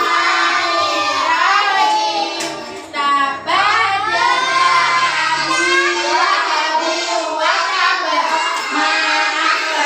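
Young children singing a song, with a short break about three seconds in.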